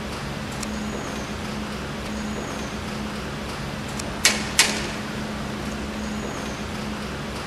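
Two sharp taps of a welding stick electrode on the steel base metal, about a third of a second apart, over a steady low hum. The double tap is the signal for the Denyo DLW-500ISW welder's Smart Stick function to restart its automatically stopped diesel engine.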